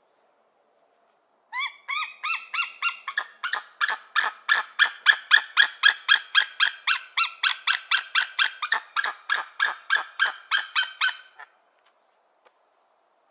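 Golden eagle giving a long series of sharp, high, yelping chitter notes. The notes start slower and quicken to about four a second, and the bout lasts around ten seconds before stopping abruptly.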